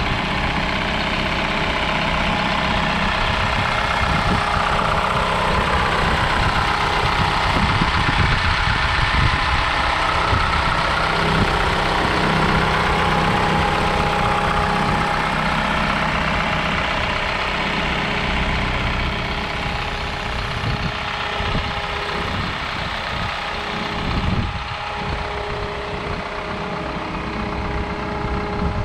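2014 Isuzu NPR HD box truck's diesel engine idling steadily, with a light diesel clatter.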